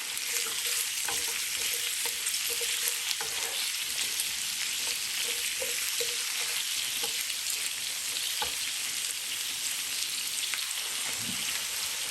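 Bone-in chicken pieces, crushed garlic and chopped onion frying in oil in a pan: a steady sizzle, with scattered light knocks of a utensil moving the food about.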